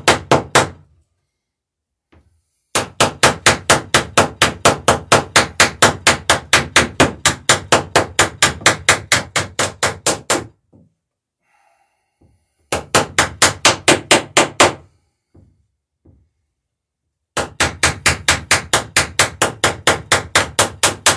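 Small hammer peening copper rivets over roves on the wooden planking of a lapstrake dory: quick, even metal-on-metal strikes, about five a second, in three long runs with short pauses between.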